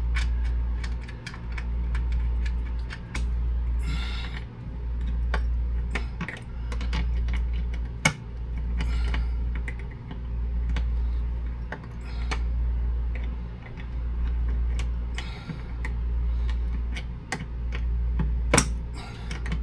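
Scattered small clicks and taps of hands working loose a coffee maker's mounting bracket and screws inside a cabinet, over a low hum that swells and drops about every second and a half.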